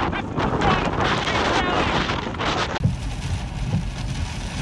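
Hurricane wind blasting across the microphone in a dense, loud rush. About three seconds in it cuts off abruptly to a lower, muffled rumble from inside a vehicle, with rain streaming over the windshield.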